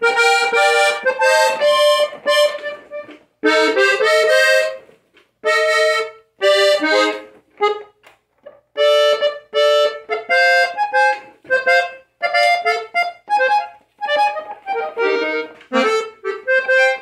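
Gabanelli three-register button accordion played by a beginner: chords and note clusters squeezed out in about a dozen short, stop-start bursts with brief gaps between them.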